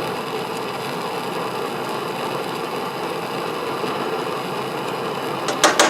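Plumbing torch burning steadily with a continuous hiss while heating a soldered copper fitting to melt the solder. A few sharp clicks come near the end.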